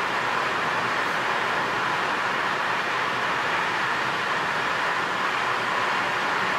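Steady road noise of a car cruising at about 83 km/h through a road tunnel, mostly tyre and wind noise heard inside the cabin, an even hiss with no changes.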